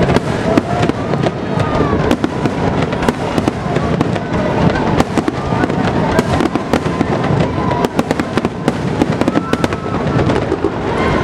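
Fireworks display: a dense, unbroken run of rapid bangs and crackles, many per second.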